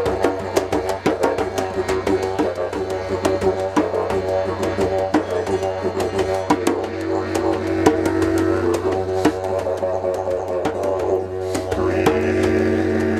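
A wooden didgeridoo plays a steady low drone under quick, dense hand-drumming on two rope-tuned djembes.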